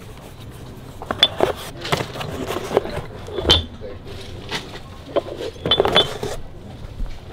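Steel milling tool holders and tooling clinking and knocking against each other and their bins as they are handled, a string of sharp metallic clinks, the loudest about three and a half seconds in and a quick pair near six seconds.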